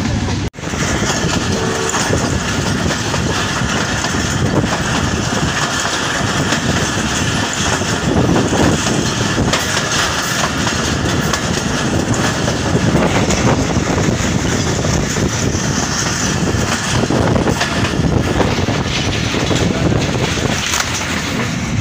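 Passenger train running along the track, heard from an open coach window: a loud, steady rush of wheel and track noise. The sound cuts out briefly about half a second in.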